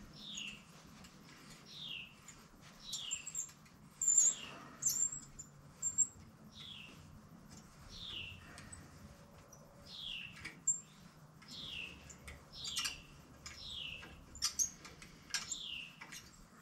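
Short, high squeaks that fall in pitch, repeating about once a second, with a few sharp metallic clicks: metal squealing in threads being worked by hand in a freshly welded steel bicycle frame.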